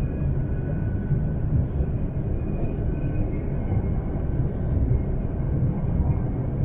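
Steady low rumble of an E3 series Shinkansen running at speed between stations, heard from inside the passenger cabin, with faint thin whines and a few faint ticks over it.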